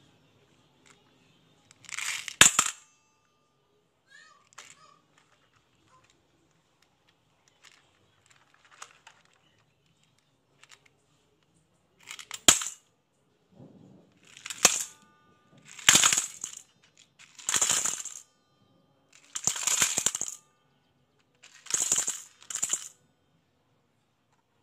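Glass marbles and plastic gems clattering and rattling as they pour from a plastic toy dump truck into a stainless steel bowl. There is one short burst about two seconds in, then a run of about seven short pours in the second half.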